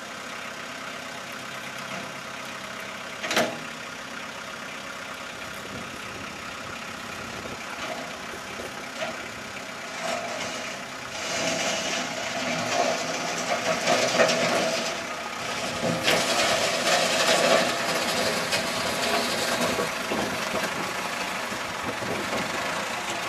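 Compact tractor's engine running steadily, with one sharp knock about three seconds in. From about ten seconds on the sound grows louder and rougher as the front-loader bucket is driven into the dirt bank.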